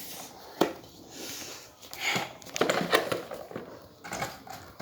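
A sharp click about half a second in, followed by light rustling and small knocks of things being handled.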